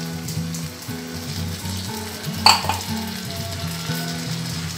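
Chicken curry sizzling in a frying pan as water is poured in and stirred with a spatula. A sharp knock of the spatula against the pan comes about halfway through.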